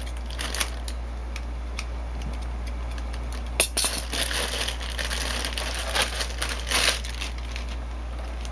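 Thin plastic wrapping crinkling and crackling as it is handled and pulled off, in short uneven spells, sharpest about three and a half seconds in.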